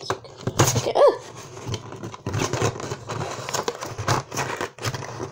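Cardboard flaps of a small Littlest Pet Shop blind box being pried and pulled open by hand: irregular scraping, crinkling and clicking of the card, with a brief pitched sound about a second in.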